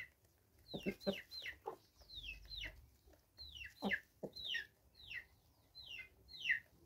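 Free-range chickens clucking while feeding: a string of short, high calls that fall in pitch, about two a second, with a few lower clucks among them.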